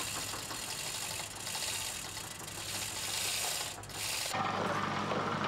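High, rasping scraping work noise from repair work on the substation. It cuts off about four seconds in and a steady low engine hum takes over.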